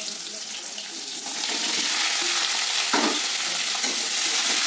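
Hot oil sizzling in a metal kadai as sliced star fruit goes in; the frying grows louder about a second and a half in. A spatula stirs the slices, with a sharp scrape against the pan about three seconds in.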